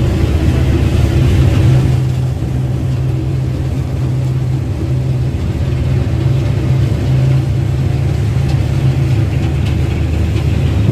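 Motorboat engine running steadily at cruising speed, heard from on board.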